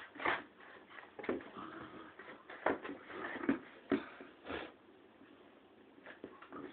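Scattered light knocks and taps as a cocker spaniel puppy paws and mouths a ball on a wooden floor. There are about half a dozen over the first four or five seconds, then it goes quiet.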